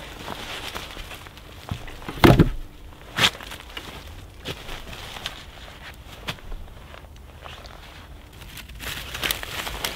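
Footsteps crunching on frozen, lightly snow-dusted leaf litter. About two seconds in, a heavy wooden thud comes as a log is dropped on the ground, and a smaller knock follows a second later. Rustling and crunching come near the end as someone sits down on the log.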